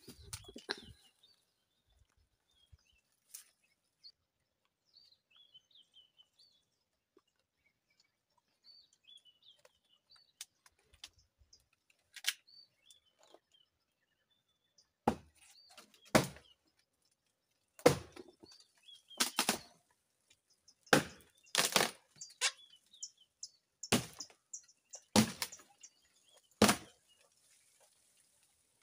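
Faint bird chirps at first. From about halfway, a run of loud, short crackles and rustles, roughly one a second, from dry brush and branches being pushed through and stepped on.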